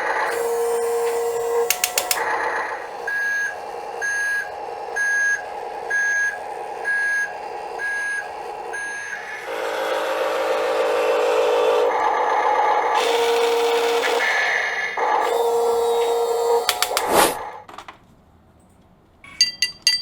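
Electronic sound effects from a toy RC forklift's built-in speaker: a steady synthesized motor tone, with a warning beep repeating about once a second for several seconds, like a reversing alarm. The sounds cut out about 18 seconds in, and quick clicking starts near the end.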